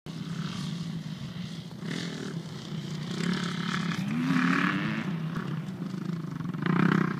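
Motocross dirt bike engine running on the track, revving in repeated surges. Its pitch rises as the rider accelerates about four seconds in.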